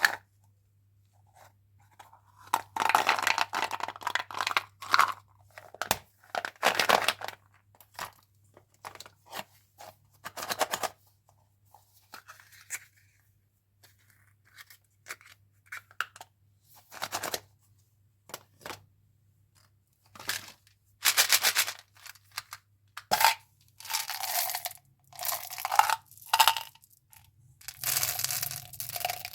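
Plastic candy and gum wrappers crinkling and tearing open in short, irregular bursts, with scattered clicks and taps.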